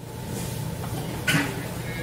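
Steady low background hum of a food stall, with one short, sharp noise a little over a second in.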